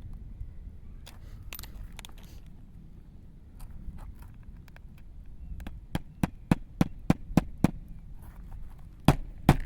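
Hammer driving roofing nails into an asphalt shingle: a few light clicks and scrapes first, then a quick run of about eight sharp strikes, roughly three a second, and two louder strikes near the end.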